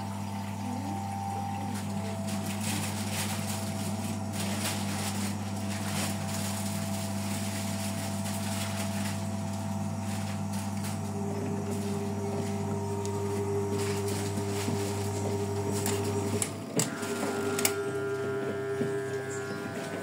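Brandt top-loading washing machine with water running into the soapy drum over a steady mechanical hum; the hum cuts off about three-quarters of the way through, followed by a few sharp clicks.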